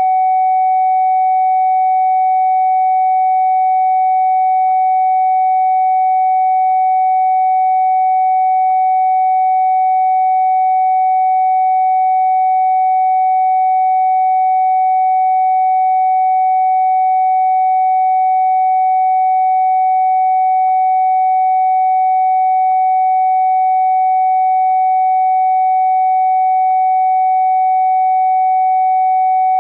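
A steady, unbroken sine-wave test tone at a single mid pitch, generated for checking a phone speaker for distortion or crackling.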